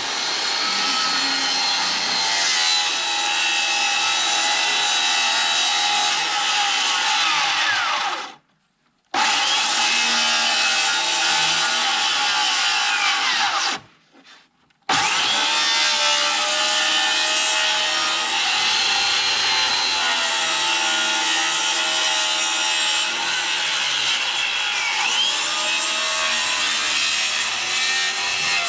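Handheld circular saw ripping a wooden board lengthwise with a rip guide, the motor whining steadily under load. The sound cuts out abruptly twice, for about a second each time.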